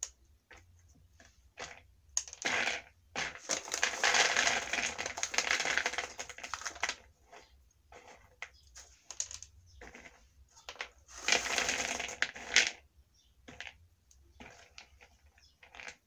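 Raw peanuts poured from a paper bag into a plastic bowl and sorted by hand: scattered light clicks of nuts on plastic, with longer spells of rattling and paper rustling from about four to seven seconds in and again around eleven to twelve seconds.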